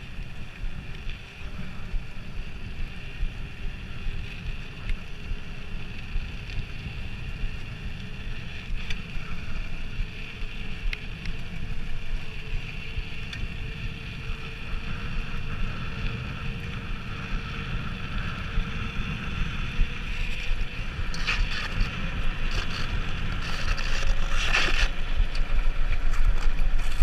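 Wind rushing over the microphone of a bike-mounted action camera as a mountain bike rolls fast along an asphalt road, with a low rumble from the tyres. The rushing grows louder and gustier over the last several seconds.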